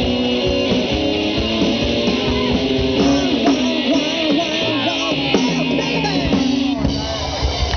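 A live amateur rock band playing loud electric guitars over bass and drums, with guitar notes sliding up and down in pitch.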